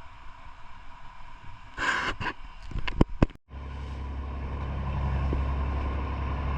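A couple of sharp knocks, then after a sudden break a boat engine running steadily with a low drone that slowly grows louder.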